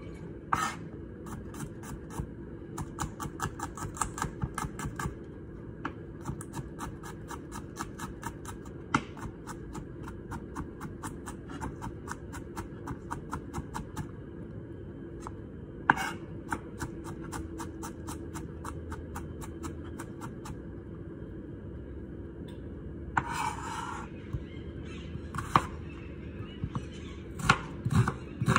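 Kitchen knife chopping garlic on a plastic cutting board, in quick runs of taps about five a second, with a short scrape of the blade across the board about three-quarters of the way through. Near the end the knife slices through an onion with louder, slower knocks on the board.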